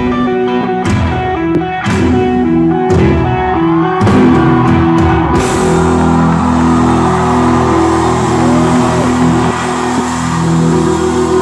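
Live rock band playing loud: electric guitar lines over a drum kit. The drum strikes drop out about halfway, leaving held guitar notes ringing over a wash of cymbals.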